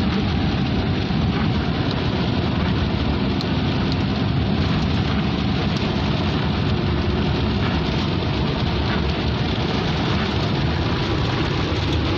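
Hail and rain pelting a car's roof and windscreen, heard from inside the cabin as a dense, steady din with a few sharper ticks of single stones.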